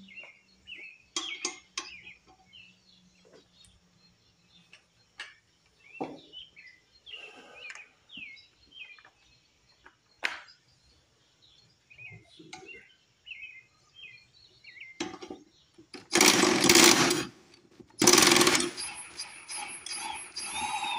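Cordless impact driver hammering on a push mower's blade bolt in two bursts, one about a second long and one shorter, to loosen the bolt and take the blade off. Weaker rattling and a thin high whine follow near the end, and scattered clicks and clanks of handling come before.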